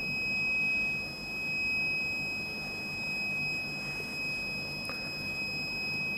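Quiet room tone: a steady high-pitched electronic whine, with a fainter higher tone above it, over a low hiss.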